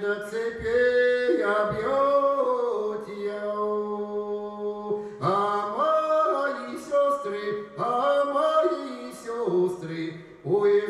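A man singing unaccompanied, a slow Russian spiritual song in long drawn-out phrases, with one note held for about two seconds in the middle.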